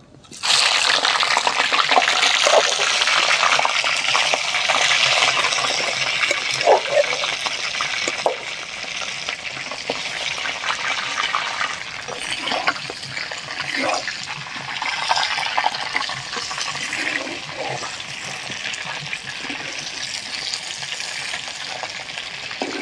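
Half-boiled chicken leg pieces frying in hot oil in a clay pan: a loud sizzle breaks out suddenly about half a second in as the pieces go into the oil, is loudest for the first several seconds, then settles to a steadier hiss with scattered pops as they are turned with a spatula.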